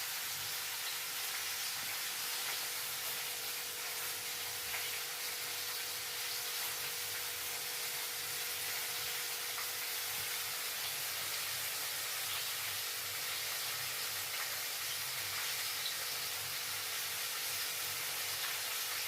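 Breaded chicken pieces deep-frying in hot oil: a steady, even sizzle.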